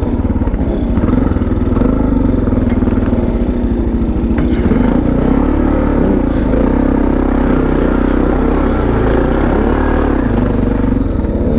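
Suzuki DR650's single-cylinder four-stroke engine, fitted with an FMF Power Bomb header and Q4 slip-on exhaust, running under load while being ridden, its pitch rising and falling a few times with the throttle.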